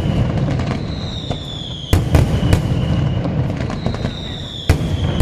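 Daytime aerial fireworks display: a falling whistle ends in a loud bang, twice, with smaller cracks and pops in between.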